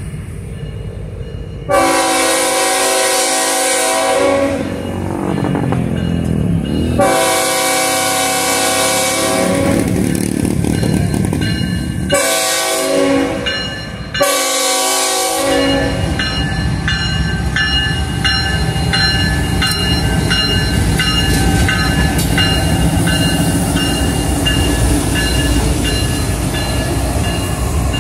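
Freight diesel locomotive's multi-note air horn sounding four blasts, two long then two shorter, the warning for a grade crossing. The train then rolls past close by: the engines rumble steadily, the wheels clack over the rail, and the flanges squeal thinly.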